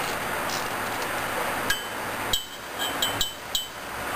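Light metallic clinks, about six in two seconds, each ringing briefly, as the 9/16 bolts holding an OMC Cobra lower unit to the upper gear case are worked loose by hand.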